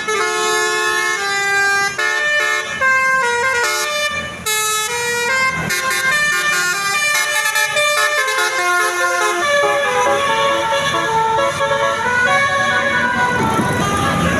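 Basuri telolet bus horn playing a melody, loud horn notes changing pitch one after another in quick steps.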